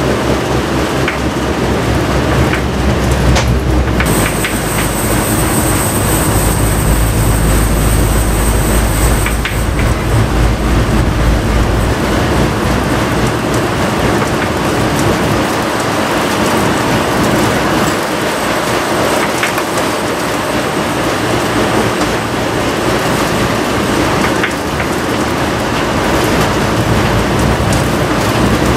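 Cabin noise of a route bus driving on a snow-covered road: the engine running and the tyres on packed snow, with small rattles and clicks. A thin high whine sounds for about five seconds near the start.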